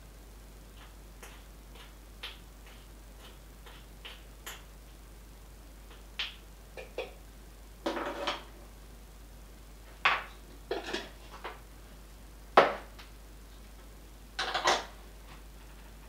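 Scattered clinks and knocks of kitchenware being handled on a countertop: faint light ticks at first, then louder clatters from about six seconds in, with the sharpest knock about three-quarters of the way through.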